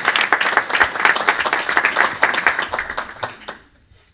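Audience and panel applauding, many hands clapping at once, dying away about three and a half seconds in.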